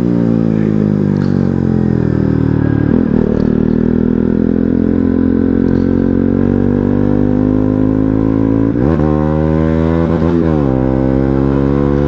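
Motorcycle engine running under way: its pitch falls over the first few seconds as it slows, climbs gradually, then rises sharply twice near the end before easing off.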